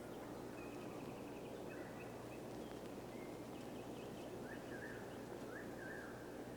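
Faint outdoor ambience with birds chirping: short, high calls repeating over a steady low background hiss.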